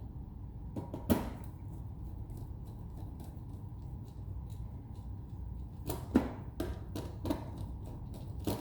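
Scattered clicks and taps of wire and small tools being handled while a jumper wire is fitted between terminals 7 and 8 of a timer, the sharpest about a second in and a cluster of them around six to seven seconds in, over a steady low background rumble.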